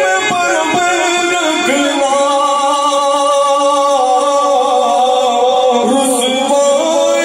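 A man singing a naat into a microphone, drawing out long held notes through the middle.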